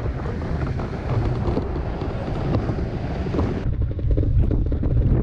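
Strong wind buffeting the microphone of a camera mounted on the hang glider, a loud, gusting low rumble. About three and a half seconds in the sound turns duller.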